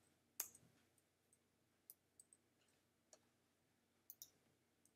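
Near silence with a few faint, scattered clicks, the loudest about half a second in: a computer mouse clicking through presentation slides.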